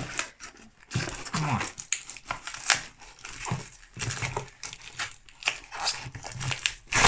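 A cardboard gift box being handled and its flaps pulled open, with the crinkle of packaging and tape being pulled loose: a run of irregular rustles, taps and clicks, the sharpest about two and a half seconds in.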